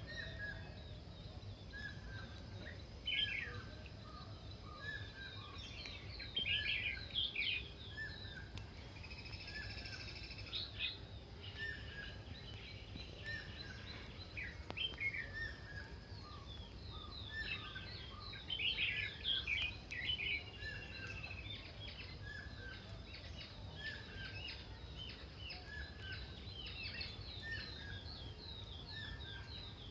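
Several birds calling and chirping, with scattered bursts of quick high chirps, while one bird repeats a short, falling note about once a second. A steady low rumble runs underneath.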